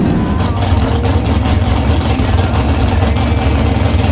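Drag-racing roadster's engine idling with a low, steady rumble.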